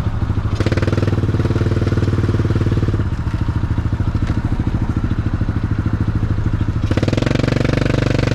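Vehicle engine running under way, heard from inside the cabin with a steady pulsing note. It strengthens about half a second in, eases around three seconds, and strengthens again near the end.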